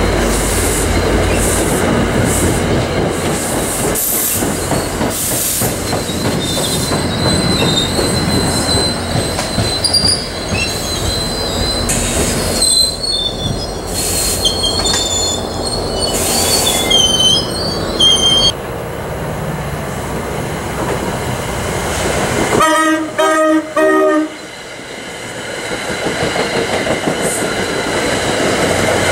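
Commuter trains running past a station platform: a steady rumble of wheels on rail, with high thin wheel squeals through the middle. A train horn sounds briefly, in a few quick pulses, about three-quarters of the way through, then the rumble of an approaching train builds again.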